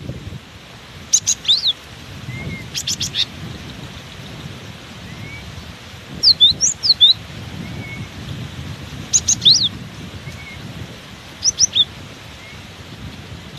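Cinereous tit (gelatik batu) giving clusters of sharp, high chirps and quick falling notes every two to three seconds. Under it runs a low rumble of strong wind buffeting the microphone.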